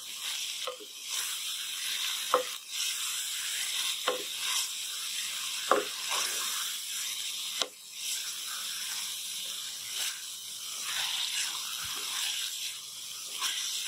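Grated bottle-gourd halwa sizzling in a metal pan as it is roasted, its sugar syrup cooking off, while a wooden spatula stirs and scrapes it against the pan every second or two.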